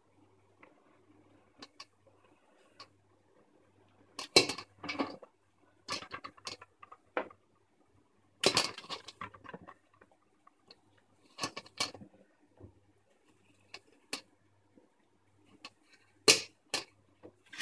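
Parboiled potato sticks being picked out of a stainless-steel colander by hand and dropped onto a tissue-paper-lined plate: soft rustles and light taps in several short bursts, with quiet gaps between.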